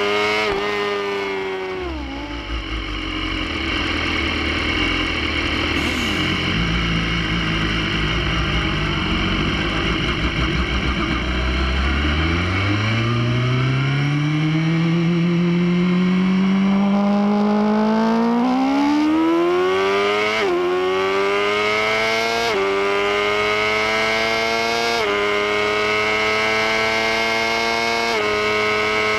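Inline-four sport motorcycle engine heard from on board with wind rush. The revs fall and it runs low for about ten seconds, then it accelerates hard from low revs, climbing through several quick upshifts.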